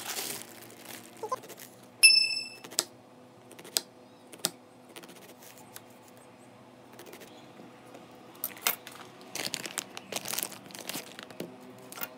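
Plastic packaging crinkling and tearing, with a few sharp clicks and one short, loud electronic beep about two seconds in.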